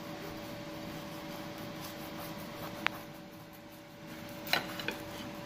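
Kitchen knife slicing through a crunchy, crumb-coated spicy snack on a ceramic plate: soft scraping, one sharp clink of the blade on the plate near the middle, and a short crunch a second or so later. A steady low appliance hum runs underneath.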